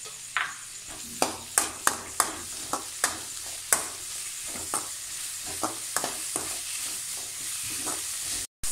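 A spatula stirring chopped tomatoes and onions in a kadai of hot oil, sautéing them soft. Sharp, irregular clacks of the spatula against the pan sound over a steady sizzle, several a second. The sound drops out for a moment just before the end.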